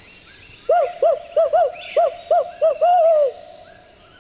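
Barred owl hooting: a quick run of about eight short hoots ending in a longer, falling hoot, the 'who-cooks-for-you-all' call. Faint songbird chirps sound in the background.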